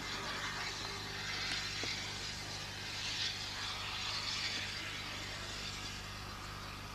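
Locomotive standing with its engine running: a steady low hum under a constant hiss.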